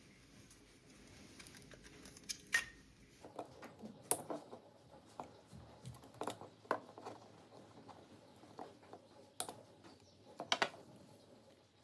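Irregular light clicks and taps of hands handling the plastic battery-pack case and small tools, sparse at first and coming more often from about three seconds in.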